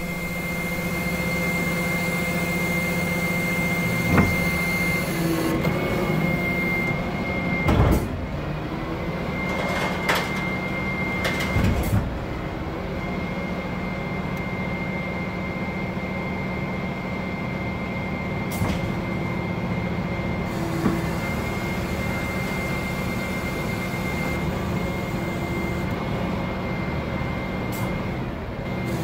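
Dennis Elite 2 refuse truck running with its Terberg split bin lifts being cycled: a steady engine and hydraulic hum with a high whine, and several metallic clanks from the lift mechanism in the first twelve seconds.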